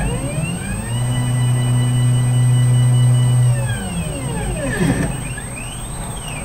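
Stepper motors of a CNC gantry machine whining as its thread-laying head moves. The pitch rises as it speeds up, holds steady for about two and a half seconds, then falls as it slows. Several shorter rising and falling sweeps follow near the end as the gantry repositions.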